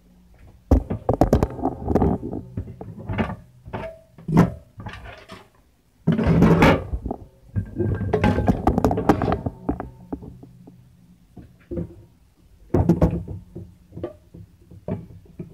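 Handling noise as a phone camera is picked up and moved, with scattered knocks, thunks and rustling of kitchen items being handled on a counter, over a low steady hum.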